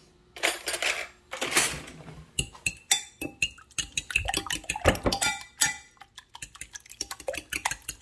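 Fork beating raw eggs in a glass measuring cup: quick, irregular clinks of the metal tines against the glass. The clinking starts about two seconds in.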